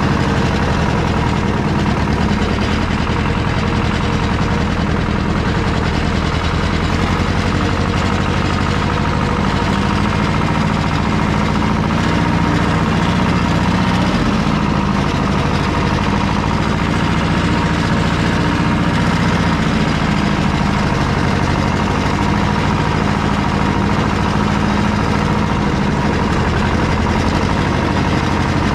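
Small tractor's engine running steadily and loudly, with a slight change in pitch near the middle.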